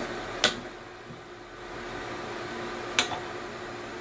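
A steady hum with two short, sharp clicks, one about half a second in and one about three seconds in.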